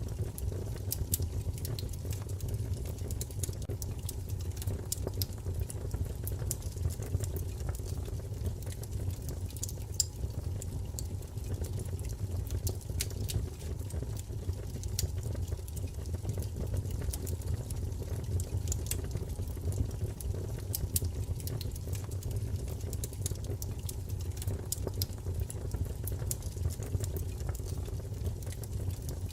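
Wood fire crackling, with irregular sharp snaps and pops over a steady low rumble of the burning.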